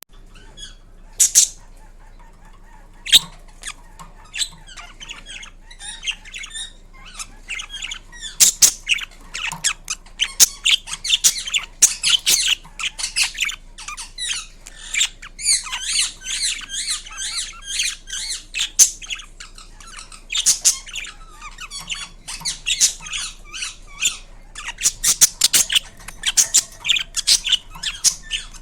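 Indian ringneck parakeet calling: a mix of sharp, high screeches and rapid chattering chirps, with loud screeches about a second in and again a few seconds later.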